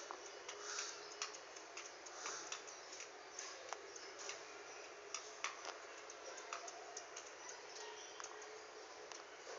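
A hen snoring softly: faint, irregular clicking and rattling sounds from its breathing.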